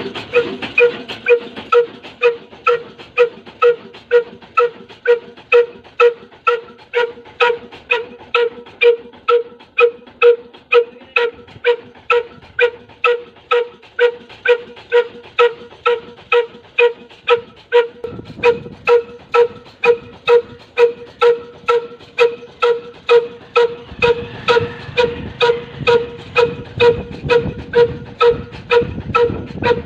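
Slow-speed single-cylinder 'kala' diesel engine, 18–20 HP at 300 RPM, running steadily: a sharp exhaust beat about two and a half times a second, each beat with a ringing tone. A low rumble joins in about eighteen seconds in and again near the end.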